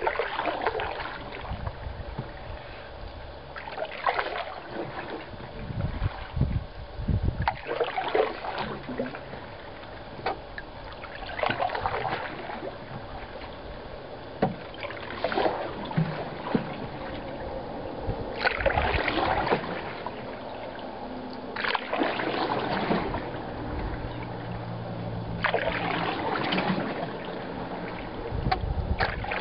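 Canoe paddle strokes in lake water, a swishing pull about every three and a half seconds, with water trickling between strokes as the cedar strip canoe glides.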